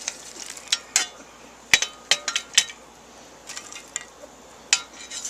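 Metal camp cooking gear being handled: a string of sharp metallic clinks and knocks, several ringing briefly, with the loudest cluster about two seconds in.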